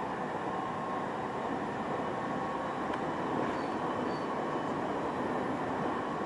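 Running noise of a moving train heard from inside the car: a steady rumble and rush of wheels on the rails.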